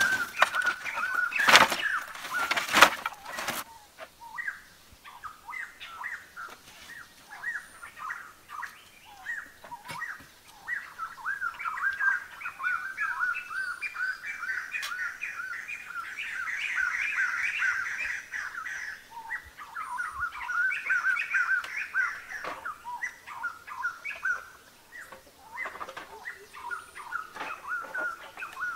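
Many birds chirping in a busy, continuous chorus of short, quick calls, with two sharp knocks in the first few seconds.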